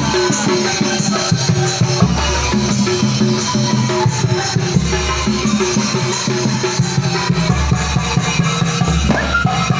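Cilacap-style angklung street ensemble playing: shaken bamboo angklung over drums struck with a mallet and by hand, in a steady, dense rhythm.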